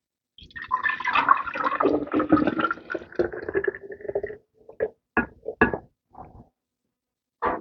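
Herbal tea running out of a handful of soaked, overnight-steeped herbs as they are squeezed by hand, pouring steadily for about four seconds, then a few separate drips and splashes.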